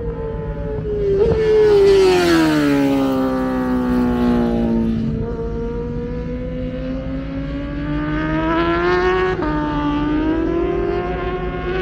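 Racing superbike engine out on track. Its revs fall away over several seconds, then climb slowly again as it accelerates, with a brief step in the note about nine seconds in like a gear change.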